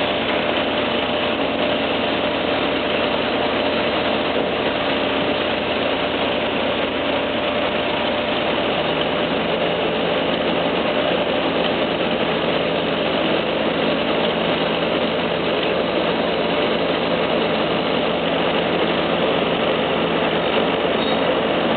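Heavy diesel engine running steadily at a low, even speed, its low note changing slightly about nine seconds in.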